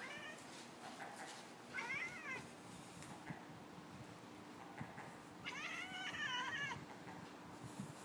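Savannah cat chattering at a seagull: two bouts of quick, stuttering chirps, a short one about two seconds in and a longer one in the second half.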